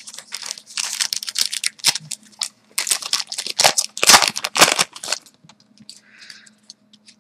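Foil hockey card pack wrapper crinkling as it is torn open and handled, in dense irregular crackles for about five seconds, then fainter and sparser.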